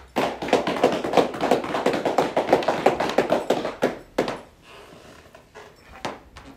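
A small group of people clapping, brisk and steady for about four seconds, then stopping, with a few stray claps near the end.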